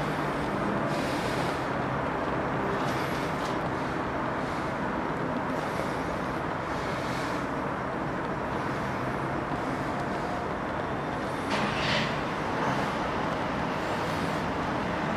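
Steady outdoor background noise, like distant road traffic, with a brief louder swell near the end.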